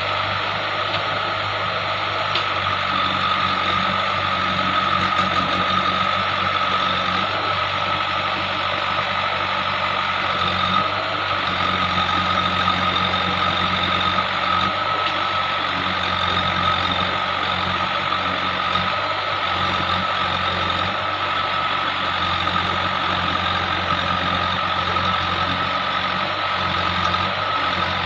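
JCB 3DX backhoe loader's diesel engine running steadily under working load, its note shifting about eleven seconds in, with a steady high-pitched whine over it.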